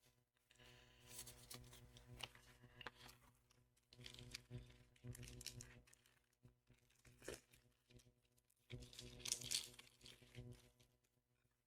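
Faint tearing and crinkling of a foil Pokémon card booster pack being opened by hand, in several separate bursts.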